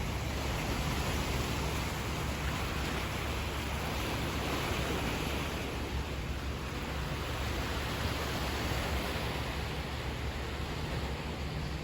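Sea surf washing steadily, a continuous even hiss of waves.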